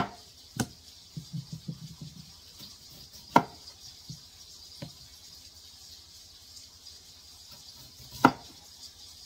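Chef's knife slicing through a raw potato and knocking down onto a cutting board, with a few sharp chops (loudest at the start, about three seconds in, and near the end) and lighter taps between.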